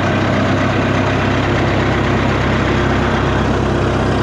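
Large wood chipper's engine running at a steady speed, a loud, even drone with no change in pitch.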